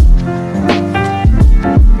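Background music with an electronic beat: deep bass-drum hits that drop in pitch, about four in two seconds, under held melodic notes.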